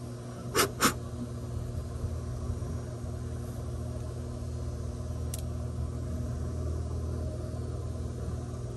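A steady low mechanical hum, with two quick sharp clicks about half a second in and another faint click about five seconds later.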